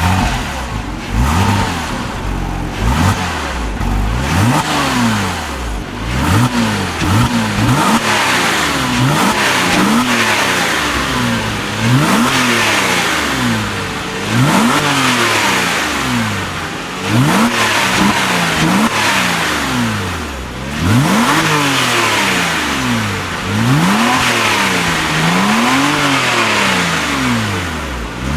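Porsche Cayman's flat-six engine revved over and over, about once every two seconds, each rev climbing sharply in pitch and falling back.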